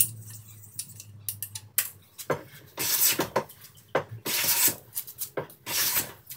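Hand plane taking shavings off a pine board held in a bench vise: three or four scraping strokes of about half a second each, starting about three seconds in, after a few light clicks and knocks of handling. The plane is a new Veritas with its blade unsharpened, as it came from the factory.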